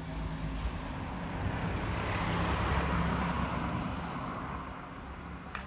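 A motor vehicle passing by: a low engine hum and hiss that swells to a peak about halfway through and then fades away. A short click comes near the end.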